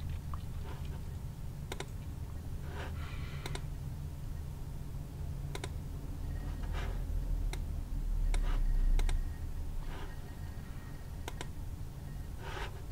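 A computer mouse clicking at uneven intervals, about once a second, with a few short scuffing noises, over a low steady hum.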